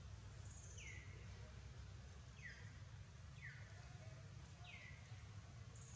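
A bird calling faintly: short chirps that fall in pitch, about four or five of them at uneven gaps, over a steady low outdoor rumble.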